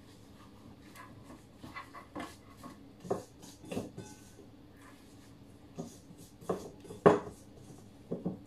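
Gloved hands rubbing and handling a raw whole chicken in a metal tray: soft, irregular wet rubbing and skin-handling sounds with scattered light knocks, the loudest about seven seconds in.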